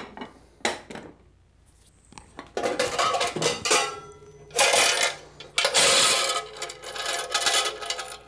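Quarters clinking and rattling in a toy vending machine's plastic coin box as it is pulled out and handled. A couple of short knocks come about a second in, then a busy rattle of coins starts about halfway through, loudest in two bursts near the end.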